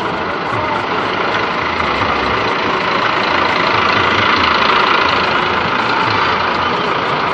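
Large bus's diesel engine idling and running steadily, a dense mechanical noise that swells slightly around the middle; no telolet horn melody stands out.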